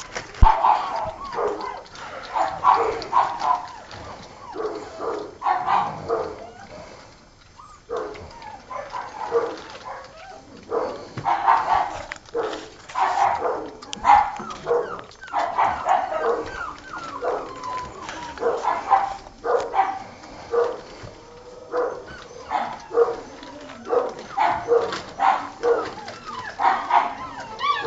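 Young Old Tyme Bulldog puppies yipping and whining while crowding a food bowl to feed, short high cries coming about once or twice a second, with scattered clicks among them.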